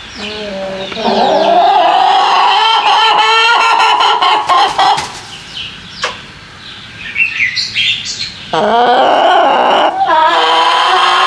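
Backyard hens cackling and squawking loudly in long drawn-out calls, with a quieter spell of a few seconds in the middle. The racket is the kind of fuss hens make around laying, which the keeper suspects here.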